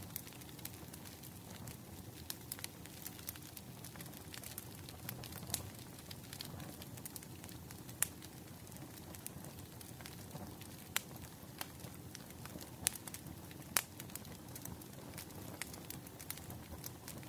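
Bonfire crackling: a steady low rumble of burning wood with frequent small sharp pops, and a few louder pops scattered through.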